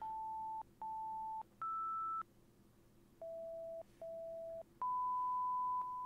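A sequence of steady electronic test tones at changing pitches: two beeps at one pitch, one higher, a short pause, two lower beeps, then a longer tone with a few brief breaks near the end.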